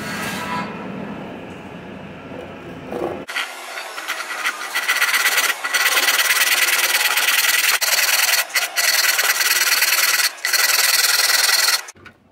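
A saw cutting into the wooden shoulder of a cricket bat held in a vise, around the broken handle: a steady, high-pitched rasp that starts about three seconds in, breaks off briefly a few times and stops abruptly near the end.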